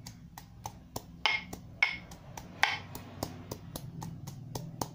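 Fresh ginger being pounded with a pestle in a white mortar: rapid regular knocks, about four a second, with a few harder strikes standing out.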